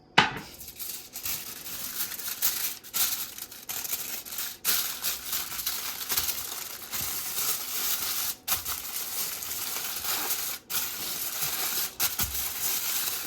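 Aluminium foil crinkling and rustling as it is folded and wrapped around a fish. The handling is continuous, with a few brief pauses.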